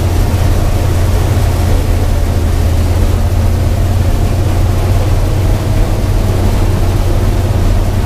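New Holland TR70 combine with its gasoline Ford V8 engine, heard from inside the cab, running steadily under load while harvesting corn. It is a loud, even drone with a strong low hum.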